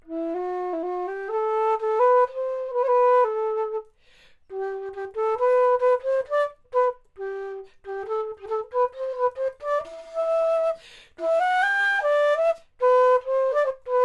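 3D-printed plastic baroque flute (traverso), a Bizey model fitted with its 440 pitch middle joint, played in short stepwise melodic phrases, with brief breaths between phrases about four, seven and eleven seconds in.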